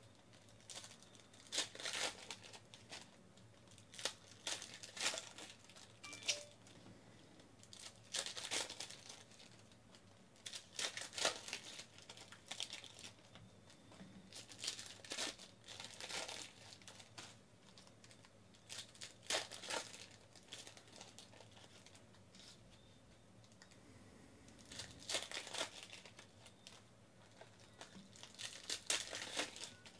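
Foil wrappers of 2014 Panini Elite Extra Edition baseball card packs being torn open and crinkled by hand, in short bursts every few seconds.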